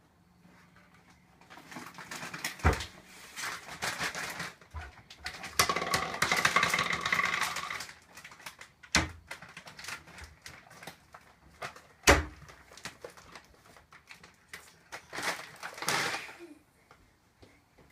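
Kitchen cupboard doors and their contents knocking and clattering, with rustling, as the cabinets are searched by someone kneeling on the counter. Three sharp knocks stand out, with busier rummaging early on and again near the end.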